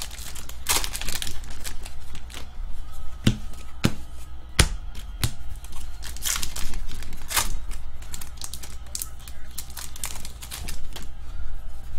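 Trading-card packs being handled and torn open: the Upper Deck SP Authentic hockey pack wrappers crinkle and rip, and the cards clack and tap in a busy run of sharp clicks.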